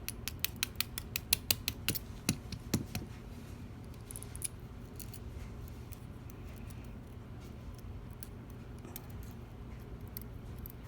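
Small metal clicks and taps from tiny lock pins and springs being handled with metal tools while a pin-tumbler lock is taken apart. A quick run of sharp clicks over the first three seconds, then only scattered faint ticks.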